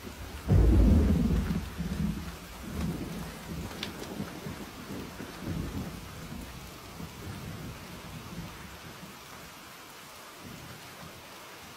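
Steady rain falling, with a loud thunderclap about half a second in that rumbles on and fades over several seconds.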